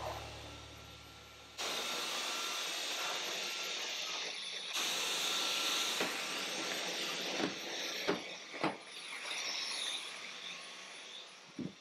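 Dyson cordless stick vacuum running, louder from about a second and a half in, its thin high whine dipping in pitch twice. A few sharp knocks in the second half.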